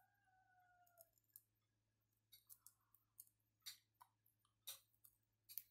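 Faint crunching clicks of a village chicken's head being bitten and worked with the teeth, its hard skull bone cracking; about seven sharp clicks come in the second half.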